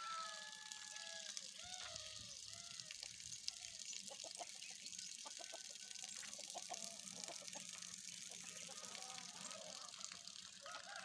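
Free-range chickens clucking: a string of short, arched calls repeating throughout, over a steady hiss.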